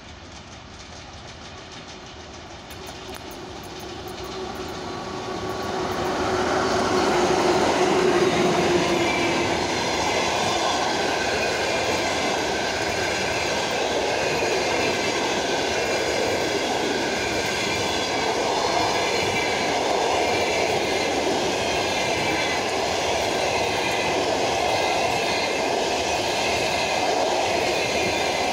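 ČS8 electric locomotive hauling a passenger train through a station at speed. It grows louder over the first several seconds and passes with a hum that falls slightly in pitch. The passenger carriages then run past with a steady rush and clatter of wheels on rail.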